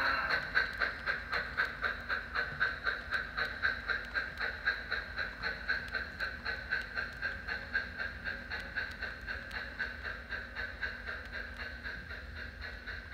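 Soundtraxx Tsunami sound decoder in an HO-scale Southern Pacific MT-4 4-8-2 steam locomotive model playing steady steam exhaust chuffs, about two to three a second, growing fainter as the locomotive moves away.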